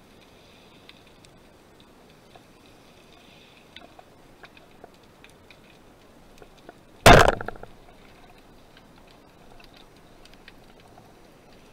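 Band-powered speargun fired underwater: one loud sudden shot about seven seconds in, fading within about half a second. Faint scattered clicks sound throughout.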